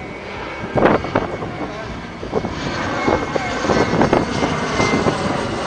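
Airplane engine droning steadily overhead, with a few short, sharp sounds over it.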